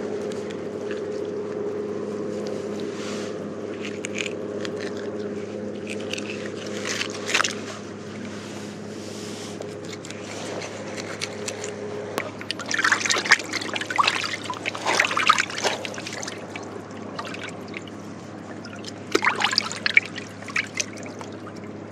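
Water splashing and sloshing in irregular bursts as a fish is handled in a bucket of seawater, loudest in the second half and again near the end. A steady low motor hum underneath fades out about halfway.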